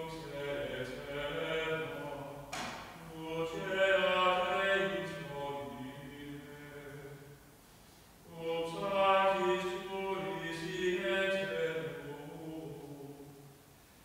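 A man's voice singing a slow, unaccompanied melody in three long phrases with short breaks between them.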